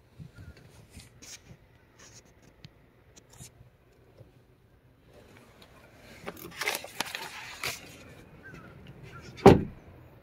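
Light handling clicks, then rustling and scraping from about six seconds in, and a single heavy thump near the end as the pickup truck's door is shut.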